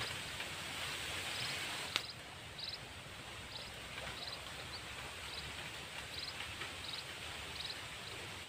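Quiet outdoor ambience: a steady hiss under a short, high chirp that repeats about every two-thirds of a second, with one sharp click about two seconds in.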